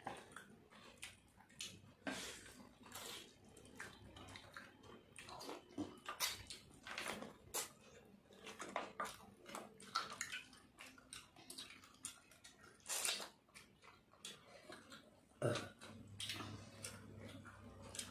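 Eating sounds: irregular wet mouth smacks and chewing clicks, with fingers mixing rice on the plates. A low steady hum joins about three-quarters of the way in.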